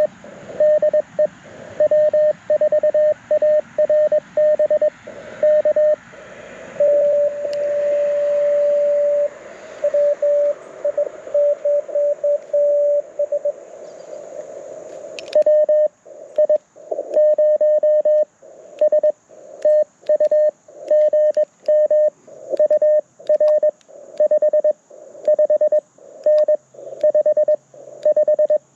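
Morse code (CW) tones near 600 Hz from a Mountain Topper MTR4B V2 transceiver through a JBL Go 2 speaker. For the first half the keying sits over band hiss, with one long steady tone about a third of the way in. After a click about halfway, the hiss drops away and the keying runs clean with silent gaps, as when the rig switches to transmit and plays its sidetone.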